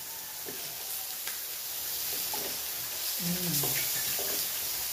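Pork belly slices sizzling steadily on an electric tabletop grill plate, with a few light clicks of metal tongs turning the meat.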